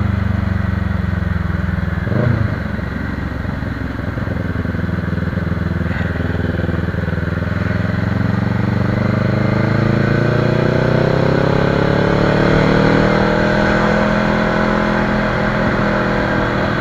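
Motorcycle engine running while riding. Its pitch dips and recovers, then rises steadily through the middle as the bike accelerates, and levels off near the end. A brief knock comes about two seconds in.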